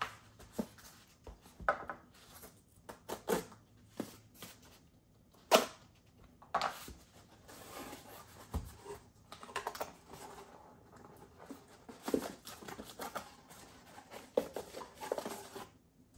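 A cardboard shipping box being opened and unpacked by hand: irregular scrapes, taps and rustles, with tape and packing tearing and one sharp click about five and a half seconds in.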